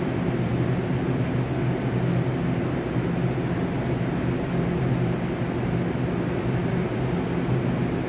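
Steady hum of a stationary electric multiple unit's onboard equipment, an even pitched drone over a low rumble as the train stands at the platform.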